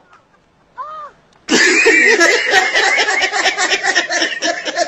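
Loud laughter from several people, pulsing rapidly, breaking out suddenly about a second and a half in, after a single short rising-and-falling call.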